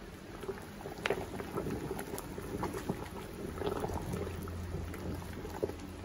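Water at a rolling boil bubbling in a large aluminium stockpot with a pair of denim jeans submerged in it, an uneven crackle of many small pops.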